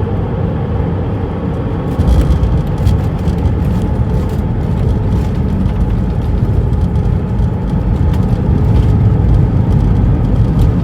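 Cabin noise of an Airbus A320 on landing: a loud, steady rumble of engines and airflow. It grows louder and rougher about two seconds in, with light rattling through it.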